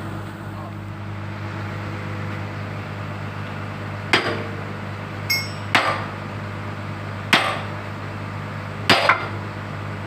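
Hammer blows on steel, five strikes coming about every second and a half from about four seconds in, with a short metallic ring between the first two: a bucket pin being driven home on a Komatsu PC 200-7 excavator. Under it runs the steady hum of the excavator's idling engine.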